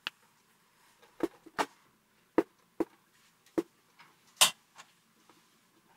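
Scattered sharp clicks and taps as a cable plug is fitted and secured into the back panel of a wooden subwoofer, about seven in all, irregularly spaced, the loudest about four and a half seconds in.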